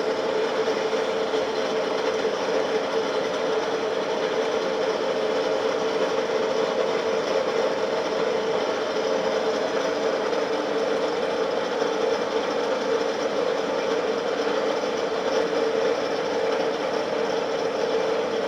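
A machine running steadily: a constant hum over a dense whirring noise, with no change in speed or level.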